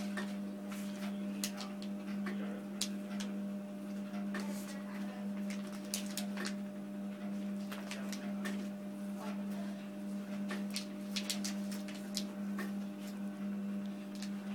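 FR-770 continuous band sealer running with a steady motor hum, over the crinkling and crackling of plastic and foil bags being handled and fed into it.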